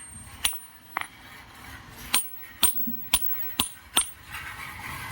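Hard steel pieces of a truck kingpin bushing removal tool set clinking together as they are handled: seven sharp metallic clinks with a bright ring. Near the end a steady rushing noise comes up.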